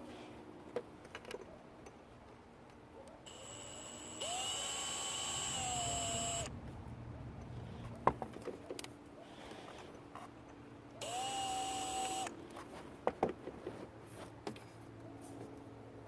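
Power drill run twice: its motor spins up to a steady whine for about three seconds, then runs again for just over a second. Small clicks and knocks of handling fall between the runs.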